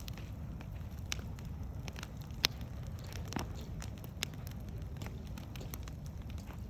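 Wood bonfire crackling, with irregular sharp pops over a low steady rumble; the loudest pop comes about two and a half seconds in.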